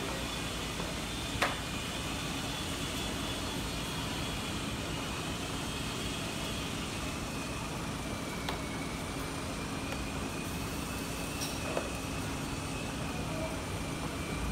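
Steady street traffic noise with a few light clicks of a plastic headlight housing and lens being handled; the sharpest click comes about a second and a half in.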